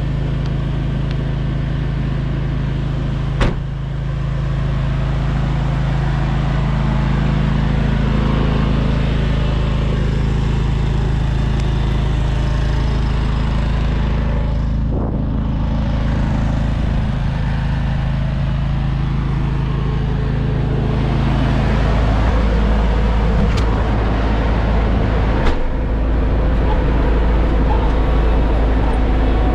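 John Deere X729's three-cylinder diesel engine idling steadily. The hum grows fuller and a little louder in the last third, heard from inside the tractor's cab, with a couple of sharp knocks along the way.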